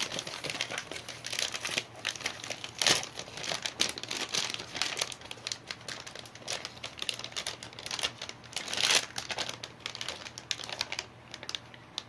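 Computer parts being handled in an open desktop PC case: a steady run of small clicks, scrapes and crinkling rustle, with louder knocks about 3 s and 9 s in.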